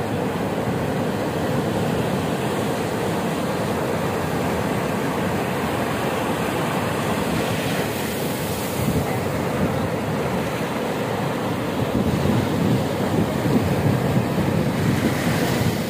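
Sea waves breaking and washing up a sandy beach: a steady surf noise that grows a little louder after about twelve seconds.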